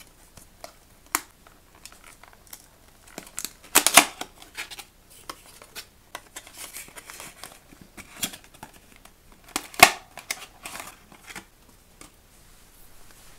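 A small cardboard box being opened and handled, flaps and card scraping and tapping, and a clear plastic bag crinkling as the contents come out. Two louder crackles stand out, about four seconds in and near ten seconds.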